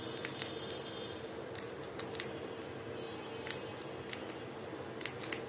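Pet rat chewing a small piece of crunchy food held in its front paws: irregular sharp crunching clicks, a few at a time, over a steady background hum.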